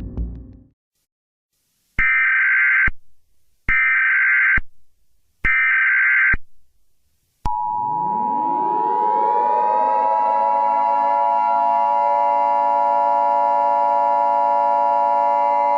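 Three buzzy bursts of Emergency Alert System header data, each about a second long with short gaps between. About seven and a half seconds in comes the steady two-tone EAS attention signal, and with it a civil defense siren that winds up in pitch over a couple of seconds and then holds a steady wail.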